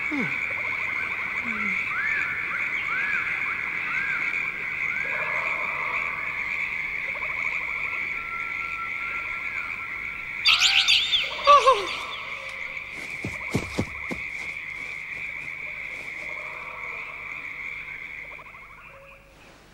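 Frogs croaking over a steady high trilling chorus, with repeated chirping calls. A louder sweeping call comes about ten seconds in, followed by a few clicks, and the chorus fades out near the end.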